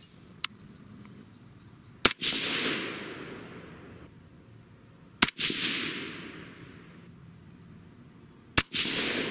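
Suppressed AR-15 in 22 ARC firing three single shots of 88-grain ELD Match factory ammunition, about three seconds apart. Each shot is followed by an echo that dies away over a second or two.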